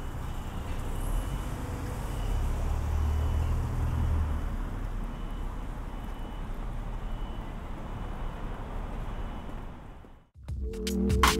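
City street ambience with a low traffic rumble, heaviest about two to four seconds in. It cuts off about ten seconds in, and a buzzing electronic hum with a pulsing beat starts.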